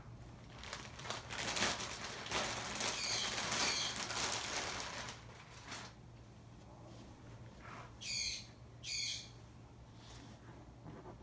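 Hands rustling and rubbing over a backpack's shell and fabric for about five seconds, then two short high warbling bird chirps about a second apart.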